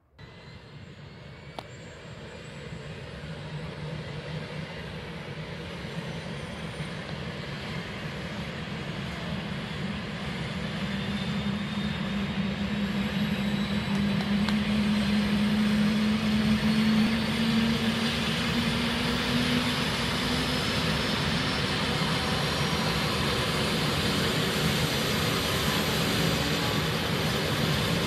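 Air ambulance helicopter's turbine engines starting and spooling up before take-off. A rising whine builds steadily in loudness over about fifteen seconds, then runs steady.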